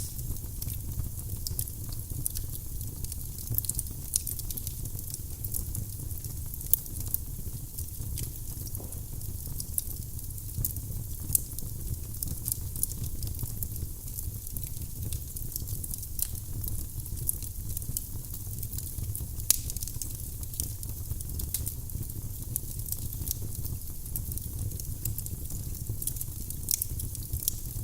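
Wood burning in a fireplace, crackling with a steady scatter of small pops over a low rumble, and a few louder pops.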